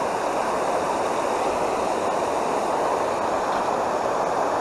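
Steady rushing of water pouring over a low concrete spillway into churning water below.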